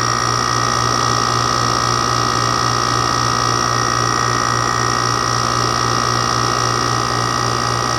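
Older Haier 6000 BTU window air conditioner (model HWR06XC3-T) running steadily: a low compressor hum under the whoosh of the fans, with a few steady high whining tones.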